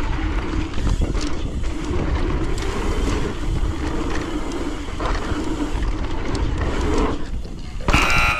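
Mountain bike riding fast down a dirt trail: wind rushing over the microphone and tyres rumbling over the dirt, then near the end a loud, sharp impact as the bike cases the step-up jump, landing short against the lip.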